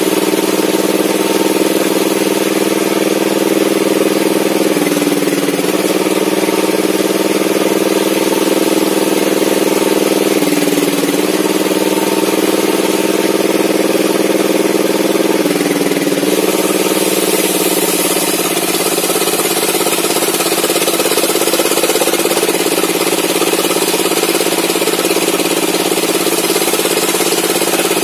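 Homemade table saw's motor and circular blade running steadily while ripping an old mahogany log, the pitch sagging briefly several times as the blade takes load. About two-thirds of the way through, a brighter, hissing cutting sound grows in over the hum.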